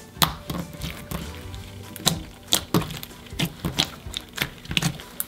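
Clear slime with sequins and confetti stars being kneaded and folded by hand, giving irregular wet clicks and pops, over quiet background music.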